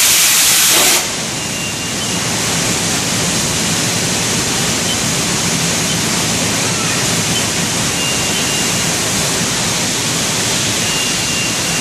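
Machine-shop noise in a robotic lathe-tending cell: a loud, bright hiss cuts off about a second in, leaving a steady rushing noise while the robot arm swaps wheel blanks in the lathe.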